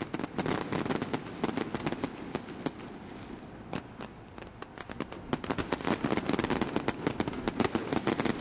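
High-altitude aerial fireworks going off: a dense stream of quick pops and crackles from bursting shells, growing thicker and louder in the second half.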